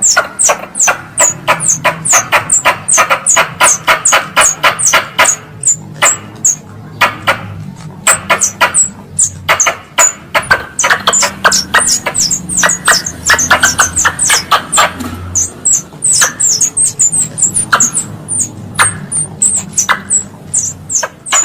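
Wild squirrel (tupai) calls used as a lure: a rapid, continuous string of sharp, high chirps, about four to five a second, each a quick downward squeak, with a few brief pauses.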